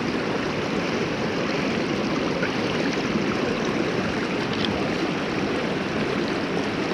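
Creek water rushing steadily over rocks, a constant even wash.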